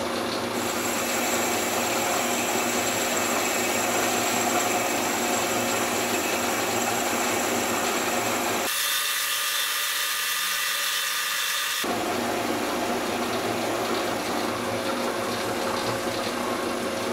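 Metal lathe running under power through a finishing facing cut on an aluminium casting: a steady hum and gear whine with the hiss of the cut. For about three seconds past the middle, the low hum drops away and a brighter hiss takes over.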